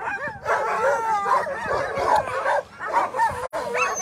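A team of Alaskan husky sled dogs barking, many dogs at once, held at a race start line and eager to be let go.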